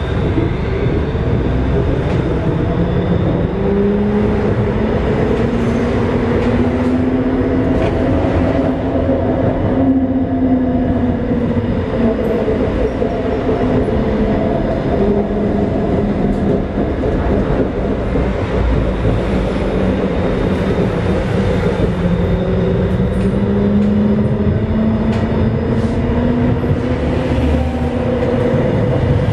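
Pesa Swing 122NaSF low-floor tram running, heard from the passenger cabin: a steady rumble of wheels on rails, with a motor whine that slowly rises and falls in pitch as the tram speeds up and slows down.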